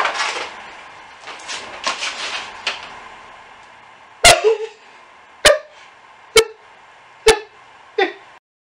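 Shiba Inu barking five short, sharp times, roughly a second apart, after a few seconds of rustling and handling noise.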